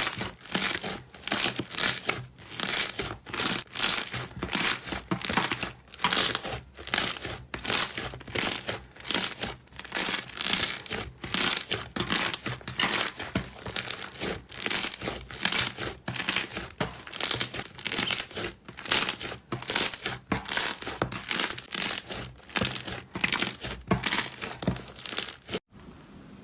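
Slime being squeezed and pressed by hand, crackling and crinkling in quick repeated squelches, about two a second. It stops suddenly near the end.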